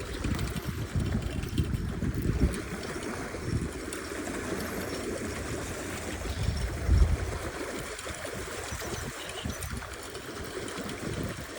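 Flowing river water, a steady rushing hiss, with low rumbling on the microphone that is heaviest in the first few seconds and again about seven seconds in.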